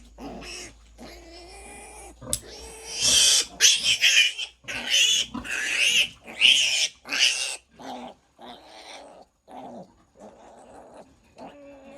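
Piglet squealing while being held, with a run of about six loud, high squeals in quick succession a few seconds in, then quieter, shorter calls.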